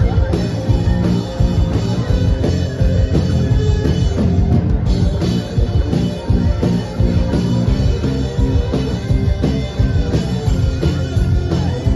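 Live rock band playing loudly: electric guitars, bass guitar, keyboard and drum kit.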